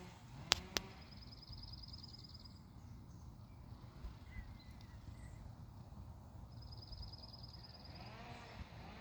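A small animal's high, evenly pulsed trill, held at one pitch and heard twice, each about a second and a half long. Two sharp clicks come about half a second in, over a steady low rumble.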